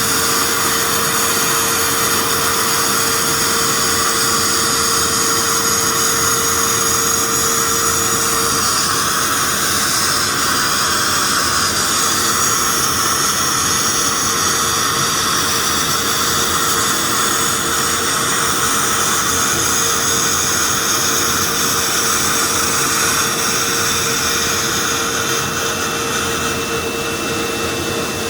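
Automatic CNC sandblasting machine running: a loud, steady rushing hiss of compressed air and abrasive, with a faint steady hum underneath. A thin high whistle comes in near the end.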